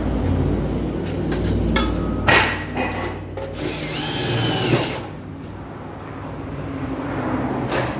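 Cordless drill driving self-tapping screws into a vehicle's body shield, running in short spurts, the longest about a second and a half near the middle, with a sharp knock a little after two seconds in.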